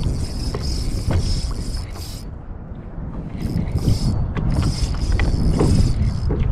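Fishing reel drag buzzing in spurts as a hooked fish pulls line off the reel, pausing for about a second midway, over low wind and water rumble.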